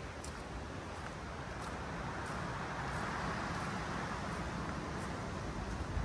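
Steady hiss and low rumble of distant road traffic, swelling for a few seconds in the middle as a vehicle passes. Faint, regular footsteps on a wet earth path run underneath.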